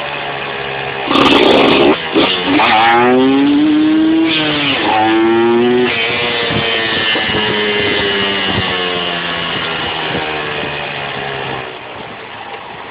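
Yamaha TZM 150 two-stroke single-cylinder engine at full throttle: a loud surge about a second in, then the pitch climbs hard, drops sharply, and climbs again. It then holds a steady, lower note and falls off toward idle near the end.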